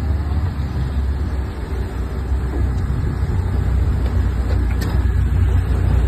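Low, steady rumble of a patrol boat's engines running alongside another vessel, with wind and churning-water noise, slowly growing louder. A single short click about five seconds in.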